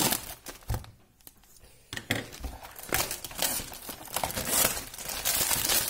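Cellophane shrink-wrap being torn off a sealed trading-card box and crumpled in the hand: irregular crinkling and crackling, with a short lull about a second in.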